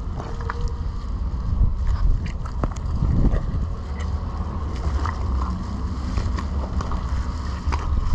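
Wind rumbling steadily on the microphone, with scattered small clicks, knocks and rustles as a knife cuts a cow's heart and lungs free from the carcass.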